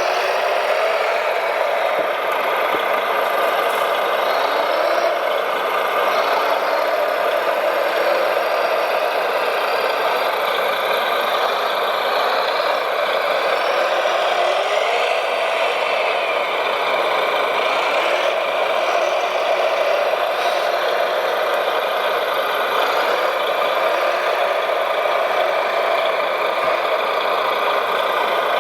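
Radio-controlled construction trucks running: a steady engine idle with short rising and falling motor whines over it.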